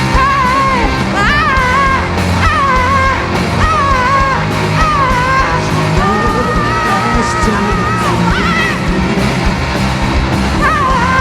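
Live soul-rock band with electric guitar, bass and drums playing, with a high, wavering wordless vocal line over it.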